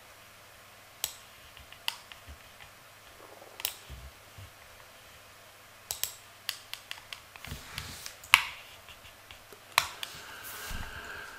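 Irregular sharp clicks of a computer mouse and keyboard, single clicks a second or so apart with a quick run of several together about six seconds in.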